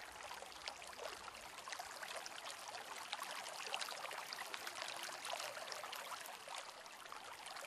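Faint, steady running-water sound: a trickling hiss dotted with many small drips and splashes.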